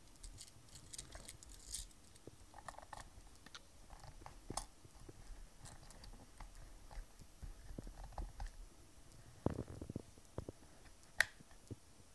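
Faint scattered clicks, taps and rustles of hands handling a small plastic electronics box and pushing a D-sub serial connector into its side, with a few sharper knocks about nine and a half seconds in and a sharp click near the end.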